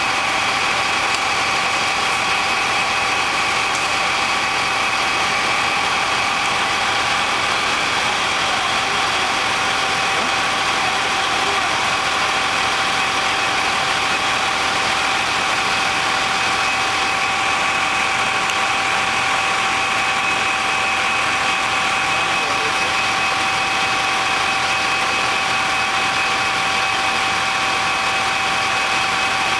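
Fire engine running steadily at the scene, a constant engine drone with a steady whine over it that does not change.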